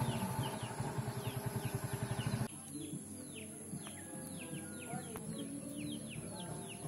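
A small motorised tricycle's engine running past with a rhythmic low pulsing, cut off abruptly about two and a half seconds in. Birds chirp again and again throughout with short falling chirps, which carry on alone after the cut.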